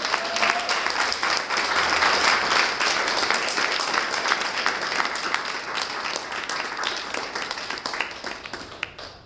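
Small audience clapping their hands in applause, the clapping dying away near the end.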